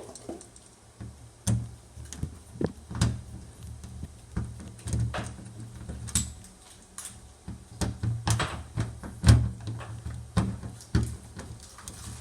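Irregular knocks, clicks and taps from hands working on a front-loading washing machine's door area, pulling at and handling its parts, with a few heavier thumps.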